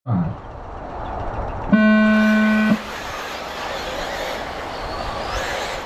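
Race-start tone: a single steady electronic horn tone sounding for about a second, signalling the start of an electric RC buggy race, over steady background noise.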